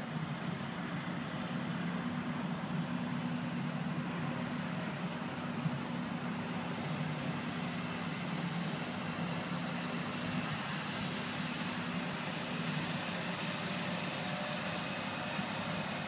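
Steady low rumble of distant engines under an even hiss, with no single event standing out; the hiss grows a little stronger about halfway through.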